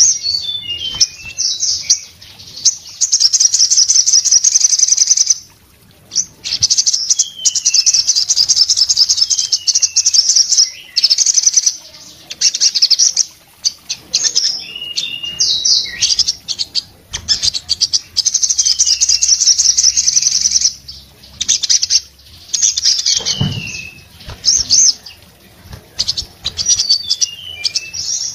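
Caged sogon songbird singing hard: long runs of fast, high, rattling chatter several seconds each, broken by short falling whistled notes and brief pauses.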